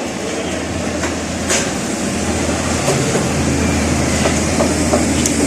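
A motor or engine running steadily with a low hum, with scattered sharp knocks and clicks over it.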